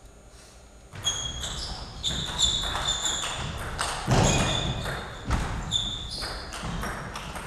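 A table tennis rally starting about a second in: the ball clicking back and forth off the bats and the table, with short high squeaks of the players' shoes on the hall floor.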